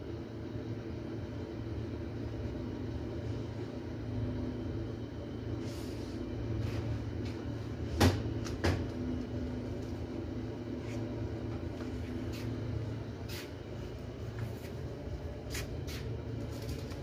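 Steady low background hum with scattered light clicks and knocks, and one sharper knock about eight seconds in followed by a smaller one just after.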